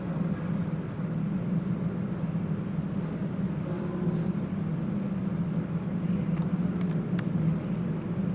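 Steady low mechanical hum, unchanging throughout, with a few short sharp clicks a little over six seconds in.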